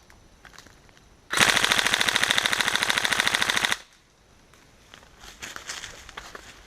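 Tokyo Marui next-generation CQBR electric-blowback airsoft rifle firing one long full-auto burst of about two and a half seconds, starting about a second in: a fast, even mechanical clatter of the motor-driven gearbox and blowback bolt cycling. Faint rustling and light clicks follow.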